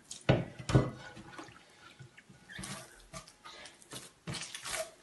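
Hands kneading wet semolina bread dough in a glazed earthenware bowl: wet squelching and slapping as the dough is worked in with water. The two loudest slaps come just under a second in, followed by scattered softer pressing and squelching sounds.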